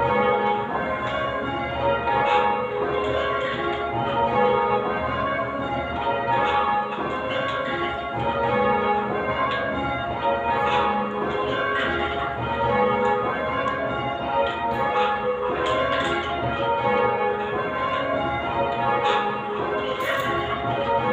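A ring of eight church bells, cast at Whitechapel with a 10 cwt tenor in A flat, rung full circle in call changes. The bells strike one after another in a steady, continuous rhythm, each stroke ringing on over the next.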